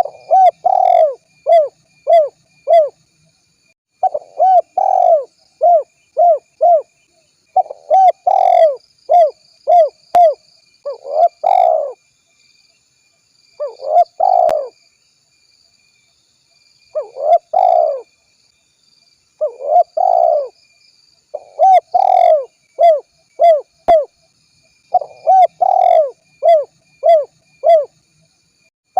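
Spotted dove cooing over and over in phrases of short, arched coos, about two to three a second. The phrases are separated by brief pauses.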